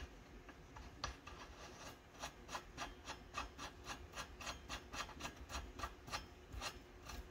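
Small nut being spun by hand onto the threaded end of a two-stroke engine's output shaft, metal threads rasping and ticking in a quick, even rhythm of about three or four ticks a second.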